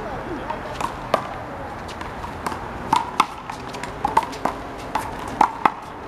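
Rubber handball in a one-wall handball rally: sharp smacks as it is struck by hand and bounces off the concrete wall and court, about nine at uneven intervals.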